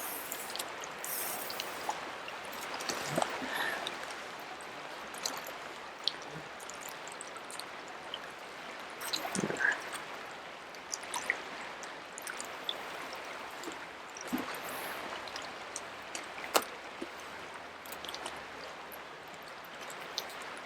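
Steady rush of flowing river water, with scattered small clicks and rustles from fly line and a sink tip being handled and untangled.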